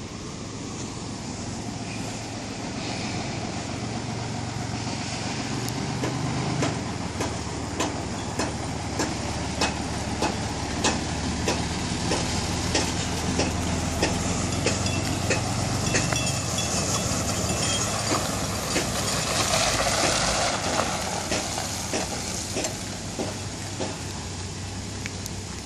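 A truck engine running as an old long-nose truck tows a tanker semi-trailer slowly past, with a string of sharp ticks, a little under two a second, through most of it. The engine noise swells about three-quarters of the way in.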